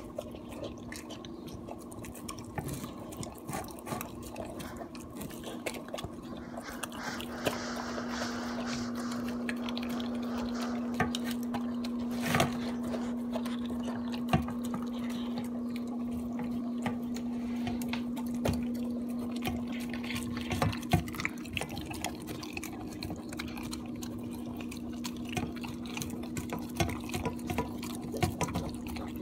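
A Basenji–Pharaoh Hound dog licking and chewing wet, oily food from a stainless steel bowl: wet lapping and smacking with many small clicks of tongue and teeth against the metal, and one sharper clink about twelve seconds in. A steady low hum comes in at about six seconds.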